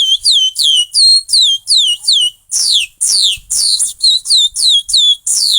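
A boy whistling by mouth in imitation of a curió's song: a rapid series of short, high whistled notes, each gliding downward, about three a second.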